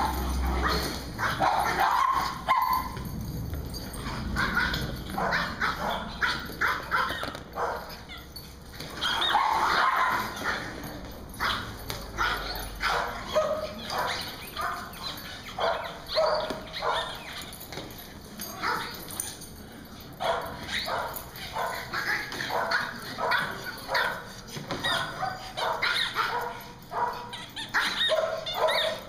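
Small dogs barking and yipping again and again, the barks coming in quick runs, with a couple of longer drawn-out yelps.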